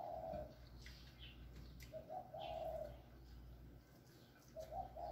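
A dove cooing: a low, hummed phrase of about a second, a short note running into a longer one, repeated about every two and a half seconds.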